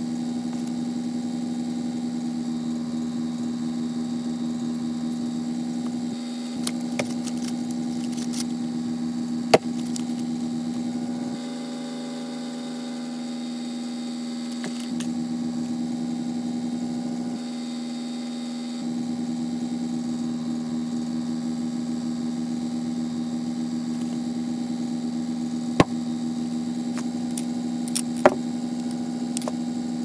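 Steady electrical hum that briefly changes tone twice in the middle. Three sharp taps break through it, one about a third of the way in and two near the end.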